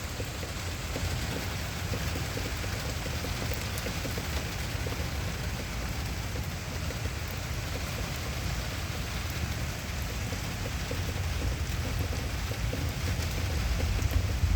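Steady rain falling during a thunderstorm, with a low rumble swelling louder over the last few seconds.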